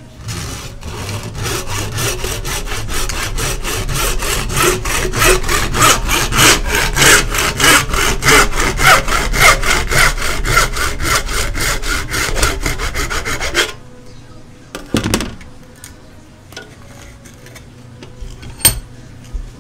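Hand backsaw cutting the threaded neck off a jar held in a bench vise: rapid, steady back-and-forth strokes, about four a second, that stop about 14 seconds in. After that come a dull knock and a sharp click.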